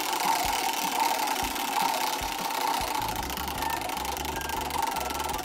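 Lazy Susan turntable spinning freely on its bearing after a hand spin: a steady whirring rumble that slowly fades as it loses speed.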